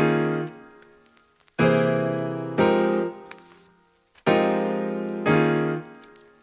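Background piano music: full chords struck in pairs about a second apart, each ringing out and fading before the next pair.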